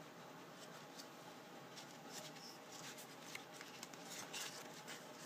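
Faint paper rustles and small ticks from a cookbook's pages being handled, a little busier in the middle, over a quiet room hiss.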